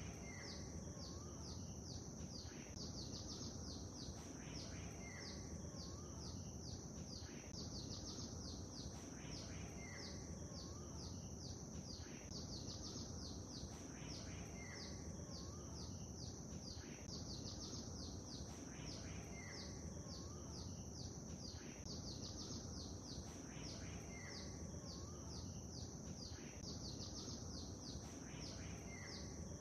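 Songbirds chirping in a constant stream of quick, high notes over a low, steady wash of lake water. A short whistled phrase comes back about every five seconds.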